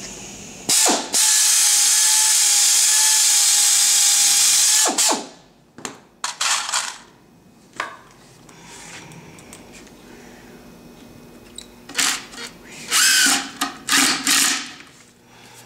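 A handheld air drill runs with a steady high whine and hiss for about four seconds, boring a pilot hole through plywood, then runs again in a few short spurts. Near the end, a cordless impact driver drives screws into the plywood in several short loud bursts.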